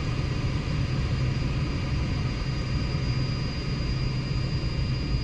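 Steady airliner cabin noise: an even rumble with a low hum and a thin, constant high whine.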